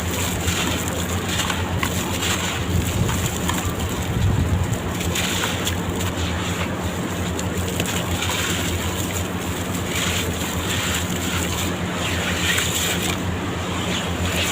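Sand-cement blocks crunching and crumbling apart in water, a continuous crackly crumbling with no break.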